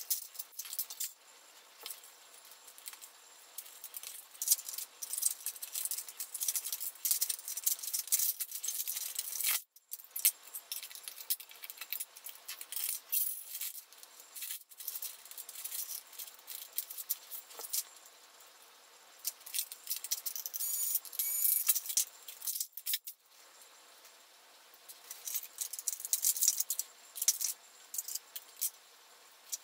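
Thin sheet-metal shields and frames of a Dell Inspiron 8100 laptop clinking and rattling against pliers and screwdrivers as they are pried off and handled, a dense run of small metallic clicks and jangles. Two brief dropouts to silence break it, about ten seconds in and near twenty-three seconds.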